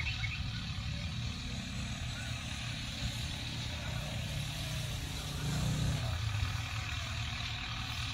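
Tractor diesel engine running steadily under load, briefly growing louder just before the six-second mark.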